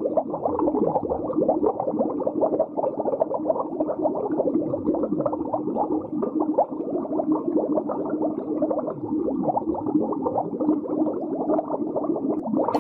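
Underwater bubbling and gurgling: a dense, continuous churn of bubbles with a faint steady hum beneath it.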